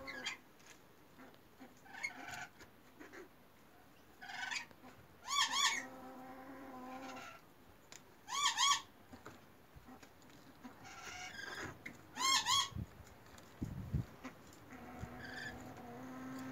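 Bird calls: three loud, quavering calls a few seconds apart, each a short rapid up-and-down trill, with softer chirps between.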